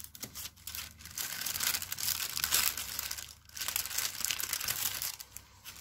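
Thin pattern paper crinkling and rustling as it is folded into pleats and cut with scissors, with many small crackles and a short break a little past the middle.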